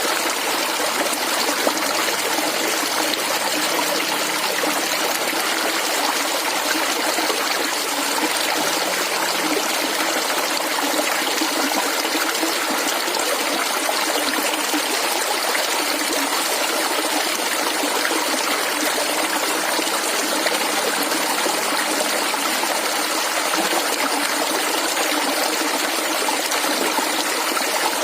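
Shallow stream of clear water flowing and gurgling steadily, with no pauses or changes.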